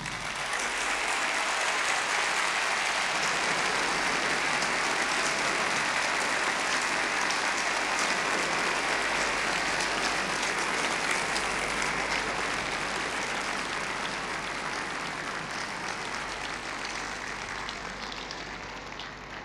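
Large audience applauding steadily, the clapping slowly fading over the last few seconds.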